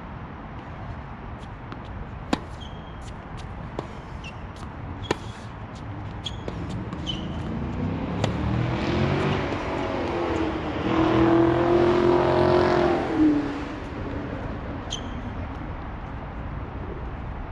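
Tennis balls struck by rackets on a hard court, sharp pops a few seconds apart. A car passes by, its engine growing louder to a peak about two-thirds of the way through, then dropping in pitch as it fades.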